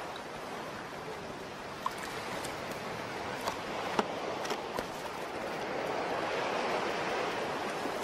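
Shallow ocean surf washing up a sand beach, a steady rushing wash that swells toward the end, with a few faint sharp clicks over it.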